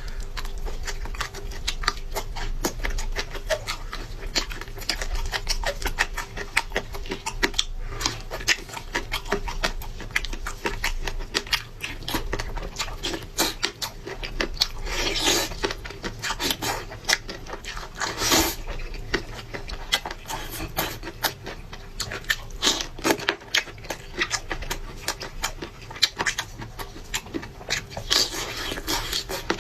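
Close-up eating sounds: a person chewing and lip-smacking, with wet mouth clicks and slurps as they eat skate. There are a few louder smacks along the way.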